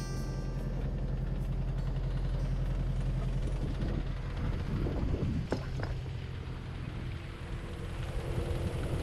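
A small engine running steadily at constant speed with a low hum, with a few light clinks about five to six seconds in.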